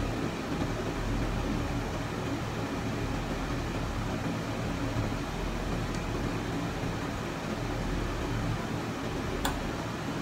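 Steady mechanical hum and hiss of room ventilation running. A sharp click about nine and a half seconds in, with a fainter one a few seconds earlier, as the microphone and pop filter are handled.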